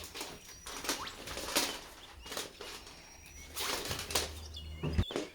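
Irregular rustling and clicking handling noises, a few seconds apart, over a low steady hum.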